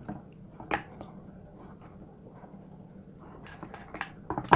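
Small plastic clicks and taps from hands working a thin antenna cable through the opened plastic case of a drone remote controller: one sharp click a little under a second in, then a quick run of light clicks near the end.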